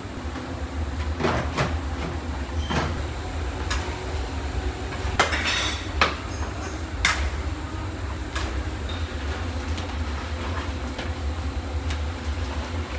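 Long metal ladles and skimmers knocking and scraping against large kazan cauldrons, scattered clanks about once a second, over a steady low rumble.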